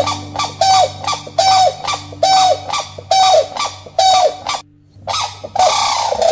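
Grey crowned cranes honking: a string of loud, rough honks at about one a second, broken off briefly about two-thirds of the way through.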